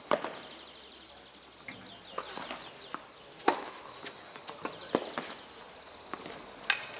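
Tennis rally on a hard court: rackets strike the ball in sharp pops roughly every one and a half seconds, the loudest about halfway through, with lighter ticks between.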